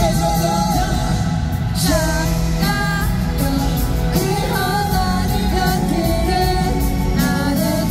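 Live pop concert: male voices singing into microphones over a live band with electric guitar, keyboards and drums, amplified through an arena PA.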